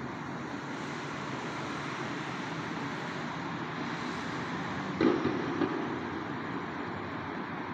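Steady low background rumble, with a brief knock about five seconds in.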